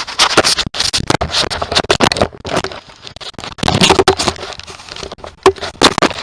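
Rapid, irregular clicking, scraping and rustling: close handling and movement noise.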